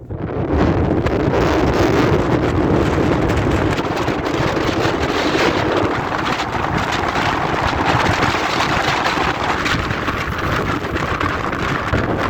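Strong storm wind blowing across the microphone: loud, steady wind noise.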